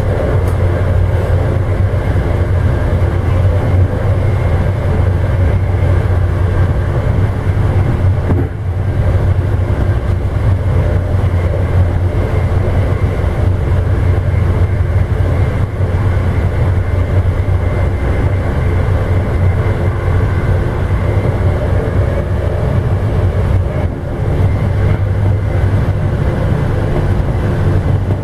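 Amtrak Illinois Zephyr passenger train running along the line, heard from inside the rear of the train: a steady low rumble of wheels on rail and car noise.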